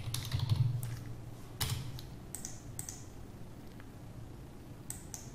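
Scattered sharp computer clicks, about nine spread unevenly, as entries are picked from dropdown menus on a web form.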